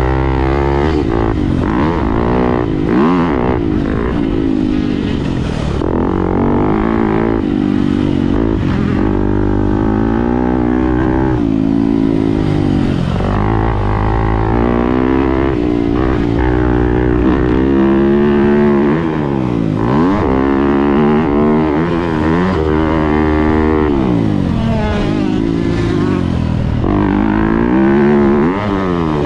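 2018 Yamaha YZ250F's 250 cc four-stroke single-cylinder engine being ridden hard, heard from onboard: its pitch climbs and drops again and again as the throttle is opened and shut, with a few deep dips and quick climbs back up.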